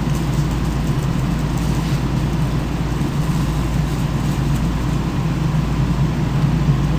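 Steady low hum with a hiss over it, even and unbroken throughout.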